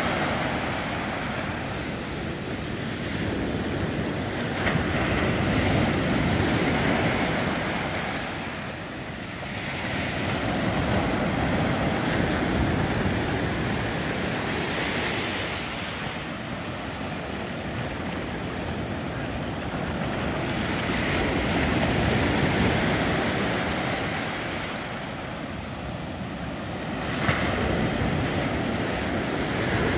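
Ocean surf breaking and washing up a sandy beach, a continuous rush that swells and ebbs as each wave comes in, with a sudden louder wave break near the end.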